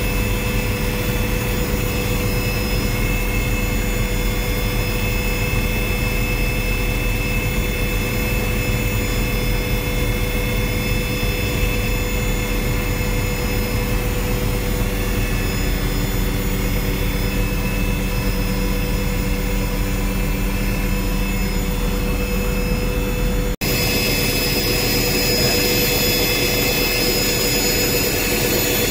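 Helicopter cabin noise: a steady engine whine over the drone of the rotor, heard from inside the cabin. It drops out for a moment about 23 seconds in, then carries on the same.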